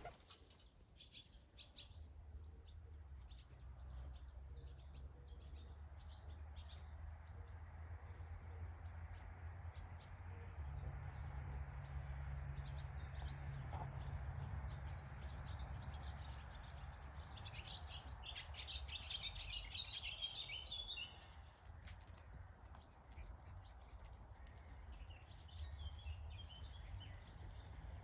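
Small birds chirping and singing, with a busier spell of song a little past the middle, over a faint low steady hum.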